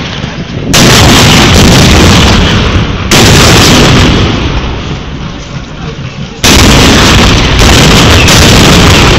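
Black-powder cannons firing blanks: three heavy booms, about a second, three seconds and six and a half seconds in, each overloading the recording and trailing off over a couple of seconds.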